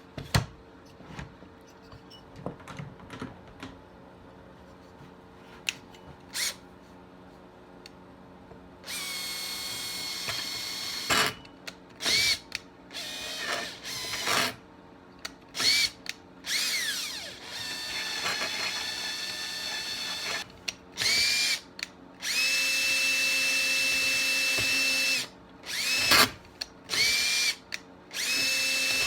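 Electric drill running in repeated short bursts, boring out the stripped bar stud hole in a Stihl 026 chainsaw's crankcase for a thread insert. Each burst spins up to a steady high whine, and the longest lasts about three seconds near the end. For the first nine seconds or so there are only light clicks and handling sounds.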